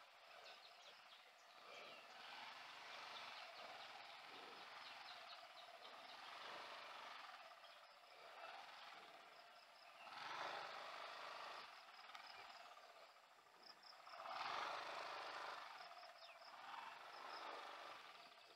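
Faint insects chirping in short repeated high notes over a low outdoor hiss, which swells twice, about ten and fifteen seconds in.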